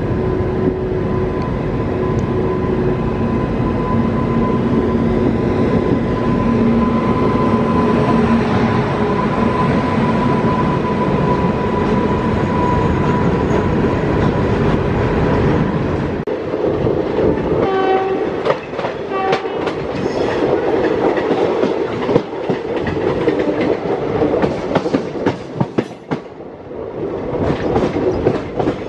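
Express passenger train running, heard from on board: a steady rumble for about the first half, then rapid irregular clicking of wheels over rail joints and points. Two short horn blasts sound about two thirds of the way in.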